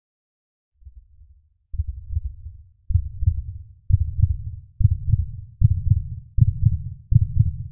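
Heartbeat sound effect: low double-thump beats that start faint about a second in, then grow louder and quicken, about eight beats in all.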